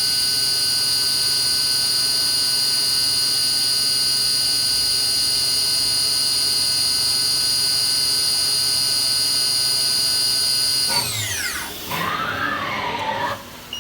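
Kitamura Mycenter 0 CNC machining center's spindle running at a steady high speed with a high-pitched whine. About eleven seconds in it winds down with a falling whine, followed by a brief wavering whine that rises and falls.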